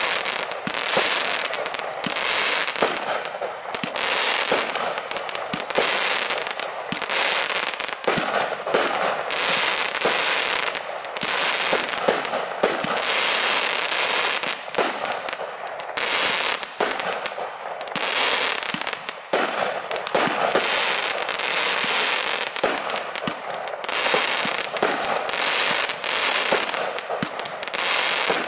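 Lesli 'Golden Blackhole' 133-shot, 30 mm compound firework cake firing shot after shot in rapid succession. The launches and bursts run together into a near-continuous crackle, with only brief lulls.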